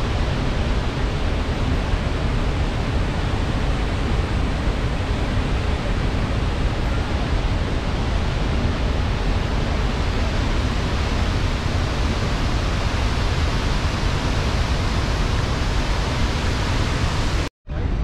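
Chitrakote Falls in heavy flow: a loud, steady rush of muddy water pouring over a wide rock ledge. It cuts off suddenly near the end.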